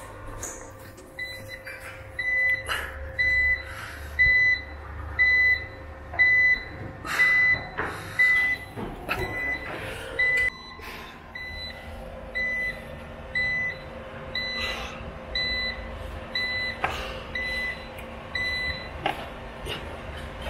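Prolink PRO810-QS UPS alarm buzzer beeping in a steady series of short beeps, about one a second, stopping shortly before the end, over a low hum and a few knocks.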